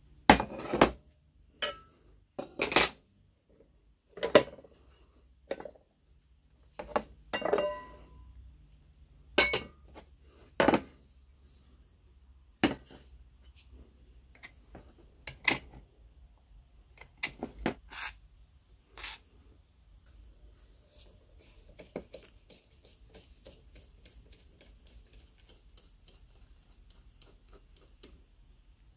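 Metal parts of an old kerosene stove clinking and clanking as they are handled and taken apart: a string of separate knocks, some ringing briefly. From about two-thirds of the way in, a faint steady scraping of a screwdriver working at the burnt deposits in the burner bowl.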